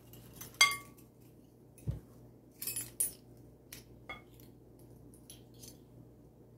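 Measuring spoons clinking and tapping against a glass mixing bowl of flour: a handful of separate clinks, the loudest about half a second in with a brief ring, a dull thump near two seconds in, then lighter taps and ticks.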